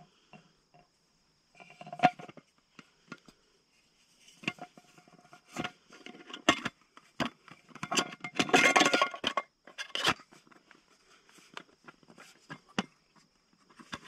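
Small metal camping pot and its lid clinking, knocking and rattling while gear is fitted inside it, with a longer stretch of scraping and rustling about eight to nine seconds in.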